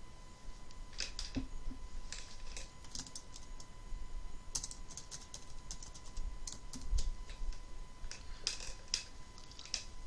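Typing on a computer keyboard: short, irregular runs of key clicks as a login password is entered.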